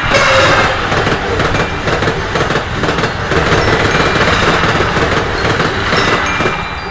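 Train passing at speed: a steady, dense rush of wheel and rail noise. It starts suddenly and eases off near the end.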